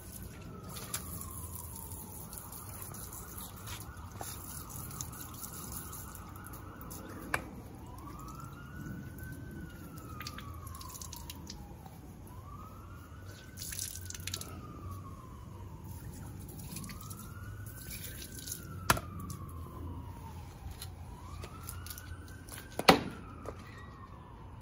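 Emergency-vehicle siren wailing, rising and then slowly falling about every four seconds, over garden-hose water splashing and dripping on concrete. A few sharp knocks come through, the loudest near the end.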